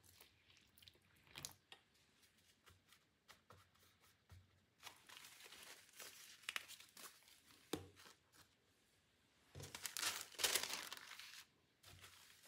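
Tea bags being unwrapped by hand: paper sachets crinkling and tearing in scattered small rustles and clicks, with a louder stretch of tearing rustle about ten seconds in.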